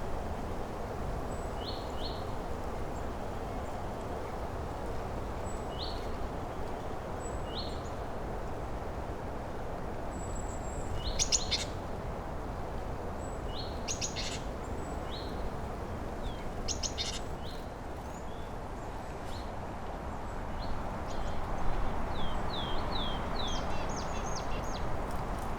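Small songbirds calling in early spring woodland: short high notes every second or two, quick trills about 11, 14 and 17 seconds in, and a run of quick falling notes near the end. Under them is a steady low rushing background noise.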